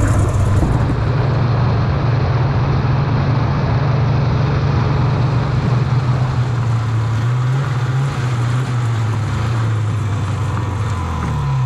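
Snowmobile engine running steadily under way, a constant low drone, heard from the rider's helmet. Its pitch dips briefly partway through and falls near the end.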